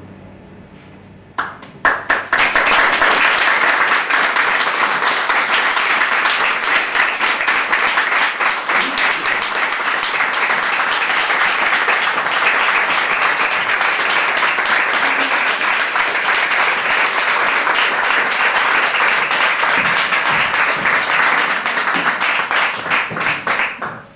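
Theatre audience applauding, starting about a second and a half in, steady throughout and dying away just at the end.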